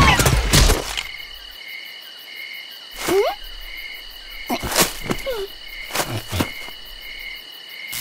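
Cartoon night ambience of chirping crickets, a steady pulsing chirr. At the start there are loud whooshing fly-by sound effects with squeaky slides. A few short sliding, squeaky cartoon effects come in the middle.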